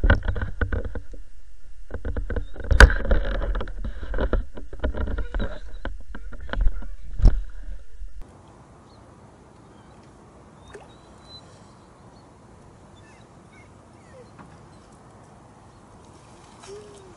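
Water sloshing and splashing right against a camera mounted on a landing net held at the surface, with sharp knocks on the net frame, the loudest about three and seven seconds in. Just past halfway it cuts suddenly to quiet lakeside ambience with a few faint ticks.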